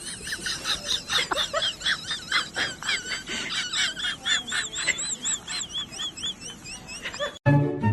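Small birds chirping rapidly, many short high-pitched arched notes a few per second, cut off suddenly about seven seconds in.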